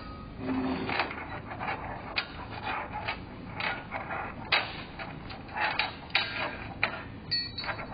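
Thin bent flat metal sign strip being handled and flexed by hand against a worktable, giving irregular sharp clicks, ticks and scrapes.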